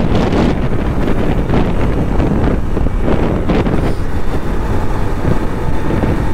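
Wind buffeting the microphone of a motorcycle rider at speed, with the bike's engine running steadily underneath.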